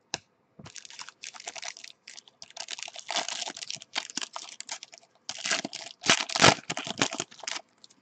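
Trading-card pack wrapper crinkling and tearing as it is ripped open by hand, in quick, irregular bursts of rustling. There is one sharp click just at the start.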